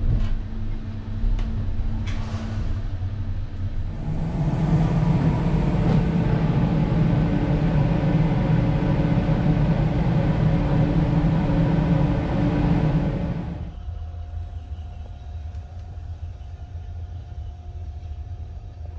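Railway train noise: a steady rumble as the sleeping car rolls into the station, then a louder stretch of train noise on the platform from about four seconds in. Near the end it drops to a quieter steady hum with a thin whine.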